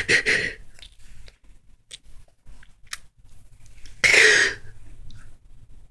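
A woman crying between sentences: a breathy sob trails off at the start, then a few faint clicks, then one loud, sharp breath about four seconds in.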